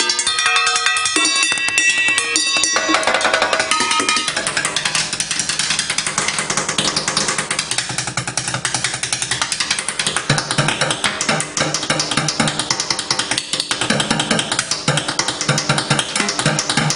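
Fast chopstick drumming on kitchen pots, pans, tins and a glass, with ringing pitched tones from the struck metal and glass in the first few seconds, then a dense, continuous patter of strikes.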